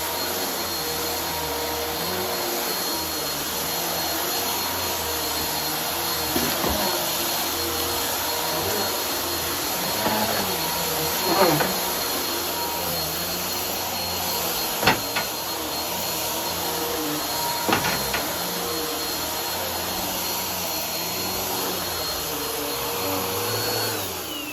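Vacuum cleaner with a brushroll running steadily with a high motor whine, sucking up a pile of crunchy debris with a few sharp cracks and pops. Near the end the motor whine falls away as it winds down.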